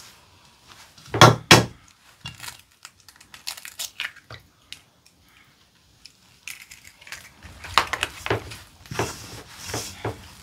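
A bare hand mixing and squeezing flour, grated carrot and egg into sujebi dough in a stainless steel bowl, a rustling, crumbly scrunching that thickens into quick repeated strokes in the second half. A couple of sharp knocks about a second and a half in are the loudest sounds.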